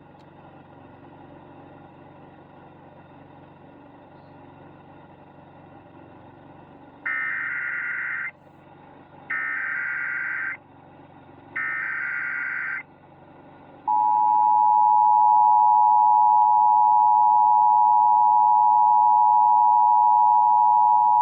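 Emergency Alert System broadcast tones coding a Required Monthly Test. After several seconds of faint hum, three short buzzing bursts of SAME digital header data come about a second apart. Then, from about 14 seconds in, the louder steady two-tone attention signal (853 and 960 Hz) sounds.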